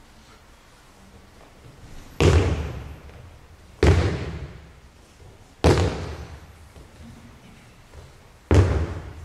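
Four aikido breakfalls onto tatami mats, each a sudden heavy thud and slap of a body landing on the mat, about one and a half to three seconds apart, each ringing briefly in the large hall.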